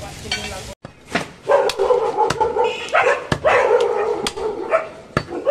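An animal calling over and over, loud drawn-out cries each lasting up to a second, mixed with sharp knocks of a meat cleaver on a wooden chopping block.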